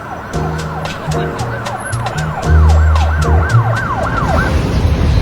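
A siren yelping rapidly up and down, about two sweeps a second, stopping near the end. It sounds over music with a deep stepping bass line and a beat that grows louder.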